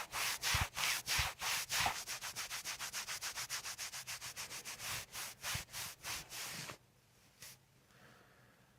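Brisk rhythmic rubbing of a hand on the body, about five strokes a second, stopping about seven seconds in.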